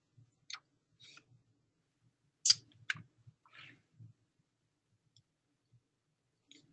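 A handful of faint, short clicks over near quiet, the loudest about two and a half seconds in.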